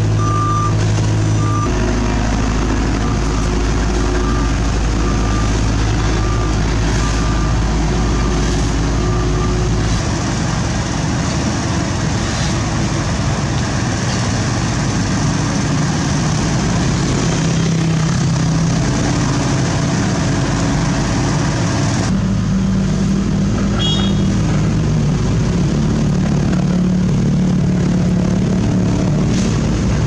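Hamm asphalt roller's diesel engine running with its reversing alarm beeping at an even pace for about the first nine seconds. After that, the steady diesel drone of the asphalt paver and roller at work, with no beeping.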